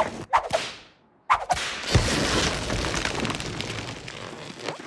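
Cartoon slapstick sound effects: quick whip-like swishes, then a sudden cut to silence about a second in. A sharp hit follows, running into a long, loud noisy rumble.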